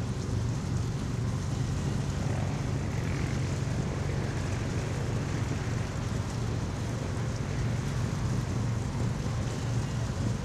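A boat's engine running with a steady low drone, heard from on board while cruising, with water and wind noise over it.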